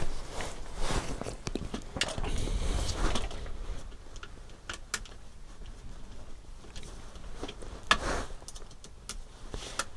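Hands working the plastic front suspension parts of a Tamiya MF-01X RC car kit and a screwdriver on a workbench: scattered small plastic clicks, taps and rustles, with a louder knock about eight seconds in.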